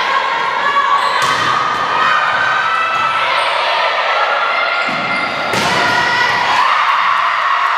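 Volleyball rally in a gymnasium: the ball is struck sharply twice, about a second in and again near five and a half seconds, with the hits echoing off the hall. A constant din of players' voices and calls runs underneath.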